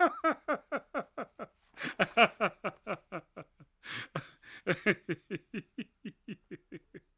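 A man laughing in short rhythmic bursts, several a second, in three fading bouts with brief pauses, dying away just before silence.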